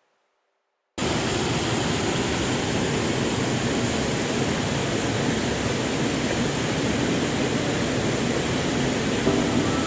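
Steady rushing water of a waterfall, an even hiss-like roar that cuts in suddenly about a second in and holds level.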